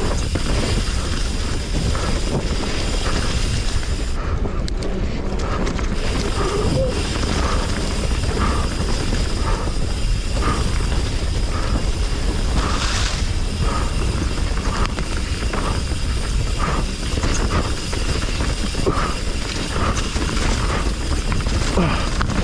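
Commencal Meta HT hardtail mountain bike riding down a dirt trail: a steady rush and rumble of wind on the camera's microphone, mixed with the bike's mechanical rattling over the rough ground.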